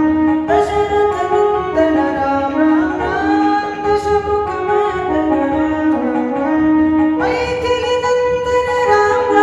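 A man singing a Kannada devotional bhajan to Rama, with Casio electronic keyboard accompaniment carrying a reedy, saxophone-like lead melody.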